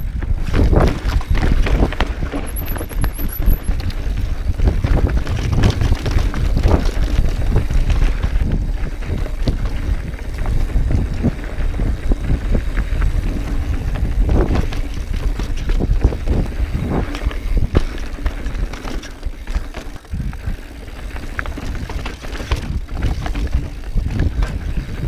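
Mountain bike riding downhill over rock and dirt singletrack, with frequent sharp knocks and rattles as it bounces over rocks. A constant low rumble of wind buffeting the bike-mounted camera's microphone runs under it.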